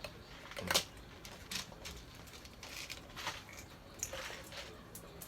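A few light, irregular clicks and taps as a scooper drops small beans into a toy chicken's mouth.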